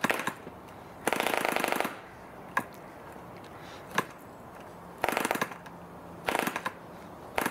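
1945 Rocket Victor .453 cu in spark-ignition model engine, a single-cylinder two-stroke, being flicked over by hand on its wooden propeller. It fires in short bursts: about a second in it catches and runs rapidly for just under a second before dying, then gives single pops on further flicks and two more brief runs of under half a second each. It will not keep running.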